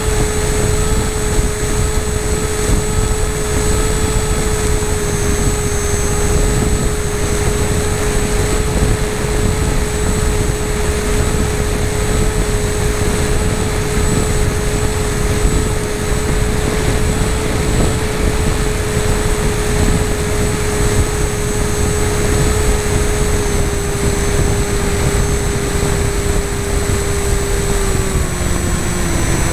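Onboard sound of a radio-controlled FPV model airplane in flight: a steady motor-and-propeller whine over heavy wind rush on the microphone. The whine drops in pitch near the end.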